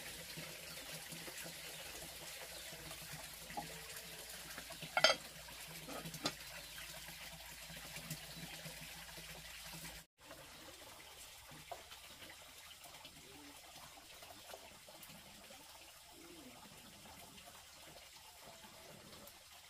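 Water trickling steadily, with a brief sharp clink about five seconds in and a few small knocks.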